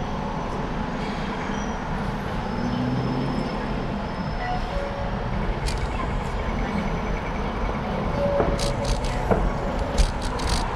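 Steady street traffic noise with a low rumble, heard while cycling along a city road. A few sharp clicks and knocks come in the last few seconds.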